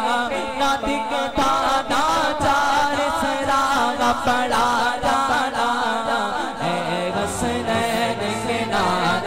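A male voice chants a naat (Islamic devotional praise of the Prophet) over a layered vocal backing, with an echo effect. A low held tone joins about two-thirds of the way through.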